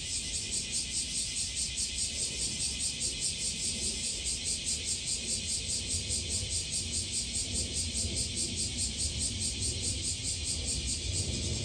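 A cicada chorus: a steady, high buzzing that pulses evenly about four or five times a second, with a low rumble underneath.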